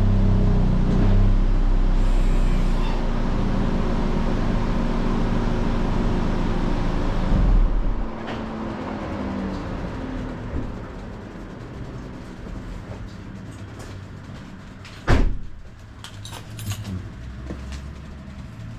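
VW Golf GTI TCR's turbocharged 2.0-litre four-cylinder running through its stock stainless-steel exhaust, then stopping about eight seconds in. A single loud thump comes about fifteen seconds in, followed by a few small clicks.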